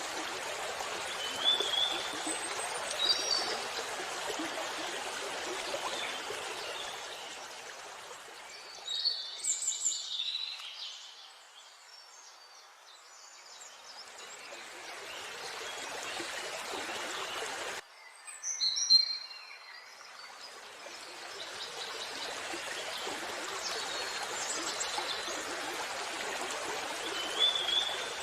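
Waterfall water rushing steadily, with birds chirping now and then. The water noise fades down for a few seconds midway and comes back after a sudden cut.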